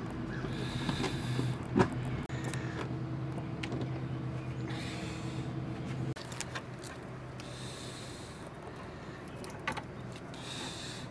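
A steady low hum that cuts off abruptly about six seconds in, under scattered clicks and knocks from a fish finder display being handled on its mount; the sharpest click comes about two seconds in.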